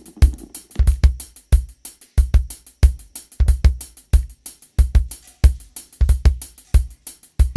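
Background music with a steady drum beat: bass drum and hi-hat strikes repeating about every two-thirds of a second.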